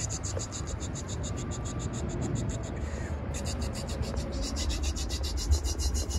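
Coin-operated kiddie ride running: a low rumble with a rapid, even pulsing hiss, several pulses a second, that breaks off briefly about three seconds in and starts again.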